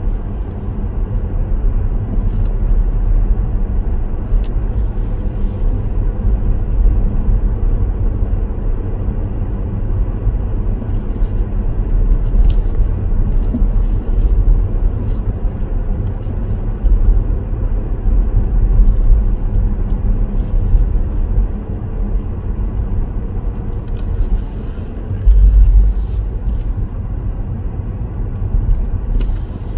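Car driving along a road: a steady low rumble of tyres and engine, swelling briefly louder about 25 seconds in.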